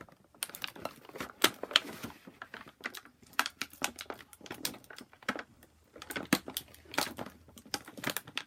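Plastic action-figure packaging crinkling and clicking as it is handled and pried open: an irregular run of sharp crackles and clicks.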